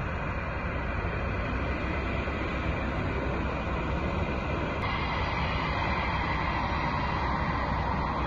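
Jet engines of a four-engine Airbus A340 airliner at low taxi thrust, heard from a distance as a steady rumbling hiss. The middle-pitched part of the noise swells slightly from about halfway as the aircraft comes closer.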